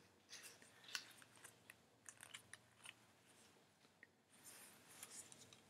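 Faint, scattered clicks of hard plastic being handled: a headlamp's battery pack and strap clip turned over in the hands, with a soft rustle of the strap about four and a half seconds in.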